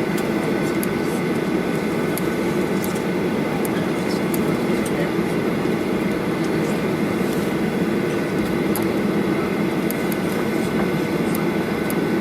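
Steady cabin noise inside a Norwegian Air Shuttle airliner on the ground after landing: a low, even rumble of engines and air, with a faint steady high tone and scattered small clicks.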